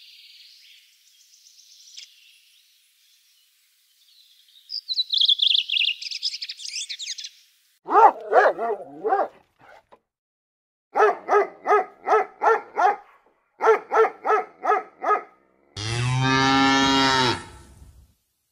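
A high trilling call, then a small dog yapping rapidly in three runs, about three or four yaps a second. Near the end a cow gives one long moo.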